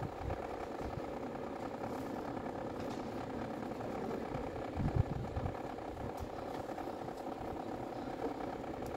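A steady mechanical hum with a soft knock about five seconds in.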